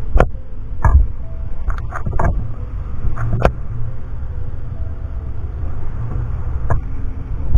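Steady low rumble of wind on the microphone, broken by a handful of sharp knocks, with a quick cluster of them about two seconds in.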